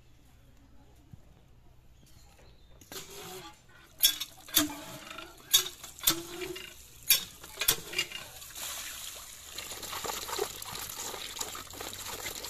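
Iron hand pump being worked by its handle, giving a series of sharp clanks in pairs with each stroke, and water gushing from the spout onto fish in a plastic basket. The splashing turns steady about two-thirds of the way in.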